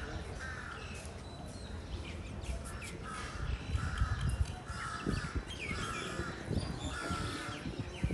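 Crows cawing, a run of harsh calls about one a second, over a low background rumble.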